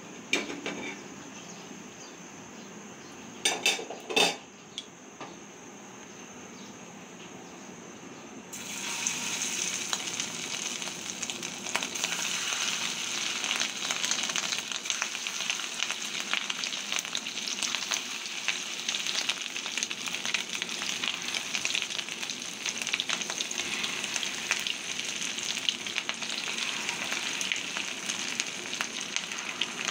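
A few sharp clinks in the first few seconds, then fish-roe fritters deep-frying in hot oil: a dense, crackling sizzle that starts suddenly about eight seconds in, as a fresh batch goes into the oil, and keeps going steadily.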